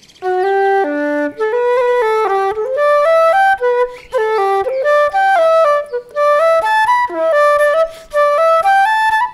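Instrumental background music: a quick melody of short, clearly pitched notes moving up and down in steps. It starts just after the opening and goes on throughout.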